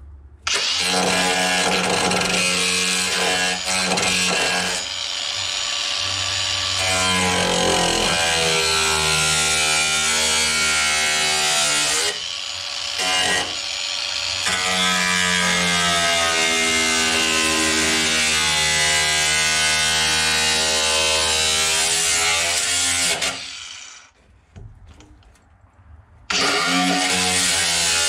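Cordless angle grinder grinding the steel of a pickup's B pillar, its motor whine bending up and down in pitch as it is pressed into the metal. It cuts out briefly twice about halfway through, then stops for about three seconds near the end before starting again.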